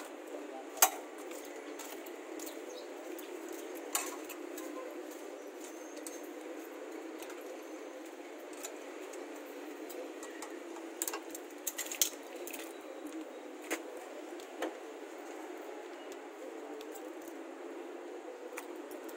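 Scattered sharp metallic clicks and clinks of steel hardware at a tow hitch: locking pliers working the pin out from under the hitch receiver, and a key ring handled at the hitch lock. The sharpest click comes about a second in, with a small cluster of clicks about eleven to twelve seconds in, over a steady low background hiss.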